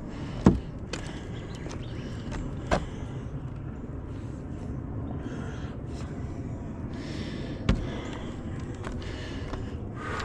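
A hiker's movement on a trail: a steady low rumble of walking and handling noise, broken by three sharp knocks, near the start, about three seconds in and near eight seconds.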